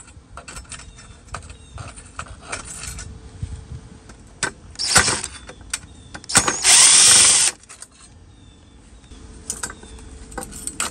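Power drill-driver with a magnetic bit running in two short bursts, about four and a half and six and a half seconds in, the second longer, backing out the small Phillips screws of a headlight retaining ring. Light ticks and clicks of the bit and screws come in between.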